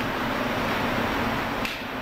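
Steady hum of fans or machinery on a factory floor, an even rushing noise with a constant low tone under it. A brief click near the end.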